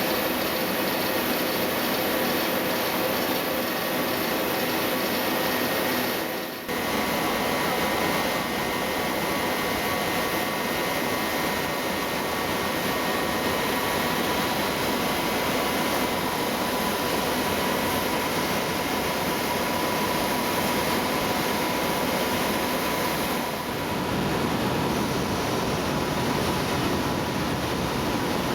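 Steady industrial machinery noise from a polyester staple fiber production line and its automatic fiber baler running, an even rushing din with a few faint steady hums. It drops out briefly about six seconds in.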